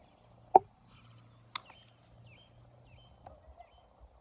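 A plastic wiffle ball struck once, a sharp hollow knock about half a second in, followed a second later by a fainter click. Birds chirp faintly in the background.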